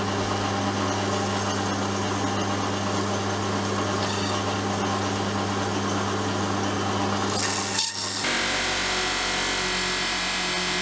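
Electric motor spinning a steel drill part while abrasive is rubbed against it: a steady hum with a rubbing hiss over it. About eight seconds in this breaks off and a different machine takes over, running with a brighter hiss.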